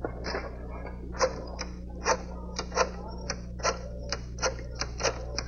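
A telephone being dialed: about a dozen quick key presses at uneven intervals.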